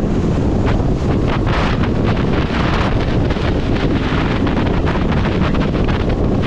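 Loud, steady wind buffeting on the microphone of a camera on a moving motorcycle, fluttering irregularly throughout.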